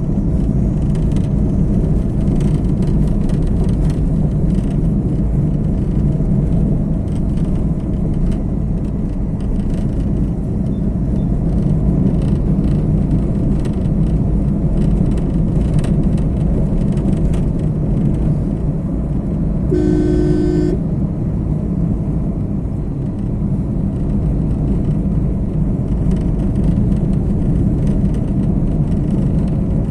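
Steady low rumble of a car driving on the road. About two-thirds of the way through, a car horn sounds once for about a second.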